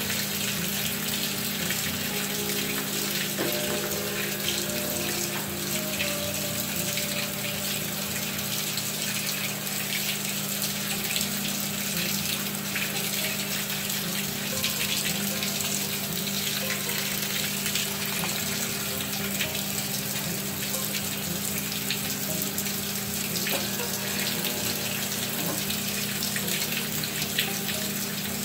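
Water running steadily inside a Maytag top-load washing machine, with a steady low hum from the machine.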